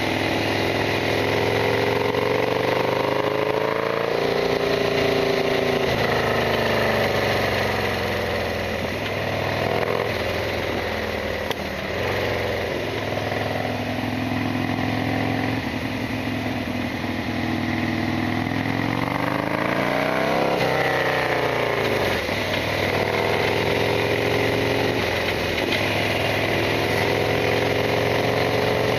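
Harley-Davidson Sportster XL1200R's air-cooled 1200 cc V-twin engine running under way, its pitch climbing and falling back again and again as the bike accelerates and shifts, with a sharp drop and quick climb about twenty seconds in.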